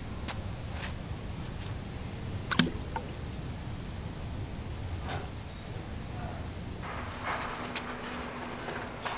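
A cricket trilling steadily in one high, slightly pulsing note over a low night-time rumble, with one sharp click about two and a half seconds in. The trill stops near the end, where the background changes to a quieter ambience with a low steady hum.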